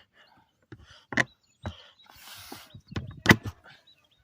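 A few sharp knocks and clatters, the loudest a little over three seconds in, with rustling in between.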